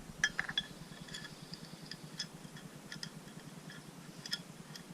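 Faint, scattered light metallic clicks and taps as a bolt and tool are fiddled by hand to start the bolt in its thread, over a low steady hum.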